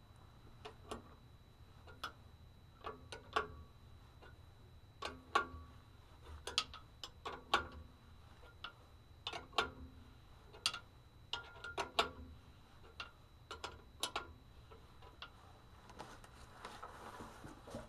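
Sharp metallic clicks and clinks at irregular intervals, about one or two a second, some with a short ring, from hardware on the caging bolt of a spring brake can being worked by hand.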